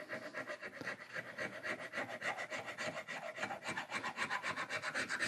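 Machinist's scraper scraping surface rust off the steel iron of a Stanley No. 1 hand plane in quick, short strokes, several a second, with light pressure.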